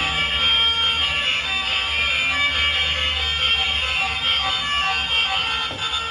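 Steady electronic alarm-like buzzing: a cluster of held high tones over a low hum, with no rise or fall in pitch.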